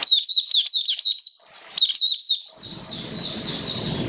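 Caged white-eye singing: rapid series of high, thin chirping notes in quick bursts, with a short break about halfway through. A low rushing noise comes in under the song about two-thirds of the way in.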